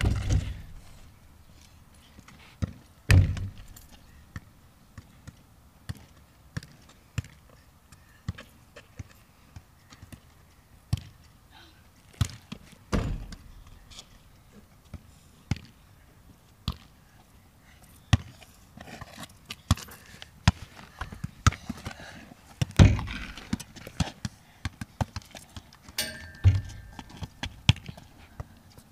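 A football being kicked and bouncing on a court surface: irregular dull thumps with lighter taps and steps between. The loudest thumps come about three seconds in, around the middle, and a few seconds before the end.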